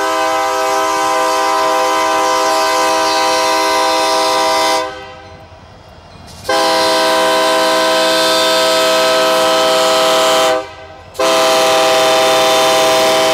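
Union Pacific freight locomotive's multi-chime air horn blowing several notes at once: a long blast, a second long blast after a short pause, then another that starts after a brief break near the end. The train's rolling noise shows through in the gaps.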